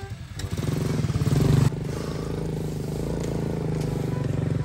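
Small motorcycle engine revving, climbing to a peak about a second and a half in, then dropping back to steady running.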